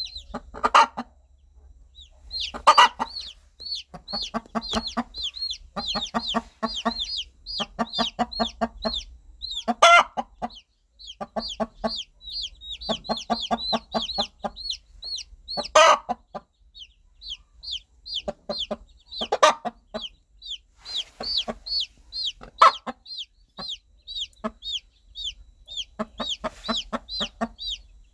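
Mother hen clucking in repeated runs of low, rapid clucks, calling her chicks, while the baby chicks peep constantly in short, high, falling chirps. Several louder, sharper calls stand out every few seconds.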